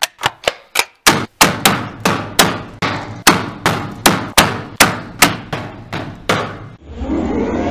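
Rhythmic percussive soundtrack: a steady run of sharp metallic hits, about four a second, ringing on over a deeper bed that comes in about a second in. Near the end the hits stop and a rising whoosh swells up.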